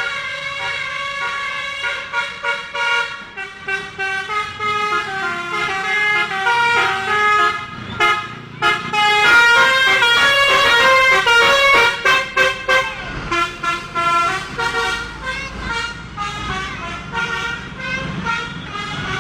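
Bus 'telolet basuri' multi-tone musical horn playing a tune, note after note in quick steps up and down, with a short break about eight seconds in.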